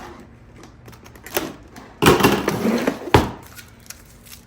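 Cardboard box of fireworks canister shells being opened and handled: a loud scraping rustle about two seconds in, ending in a sharp knock.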